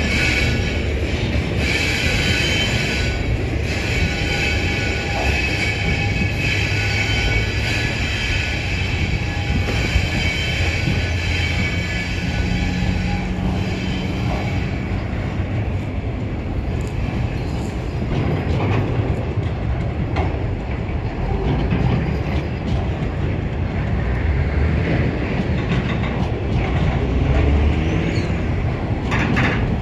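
Empty freight wagons of a TasRail train rolling past, with a steady rumble and clatter of wheels on rail. Over roughly the first half, high metallic squealing from the wheels or brakes rides on top, then fades.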